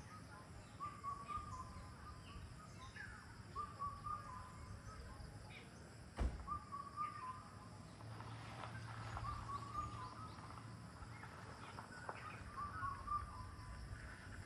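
Birds calling outdoors: one bird repeats a short call every two to three seconds, with scattered brief chirps from others. A single sharp click about six seconds in.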